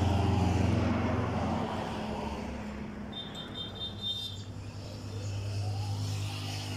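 Road traffic: a passing truck's engine is loudest at first and fades over about two seconds, then another vehicle's engine hum grows louder past the middle.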